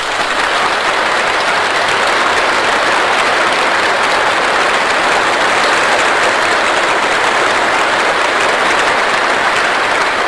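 Large audience applauding steadily in a sustained ovation, heard on a 1930s film soundtrack.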